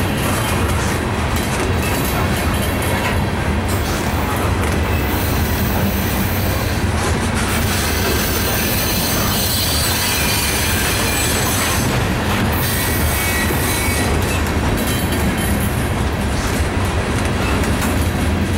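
A loaded coal train's hopper cars rolling past, with steady wheel-on-rail noise and some faint wheel squeal.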